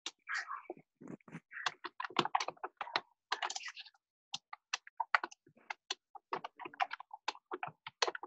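Typing on a computer keyboard: irregular key clicks several a second, with a brief pause about four seconds in.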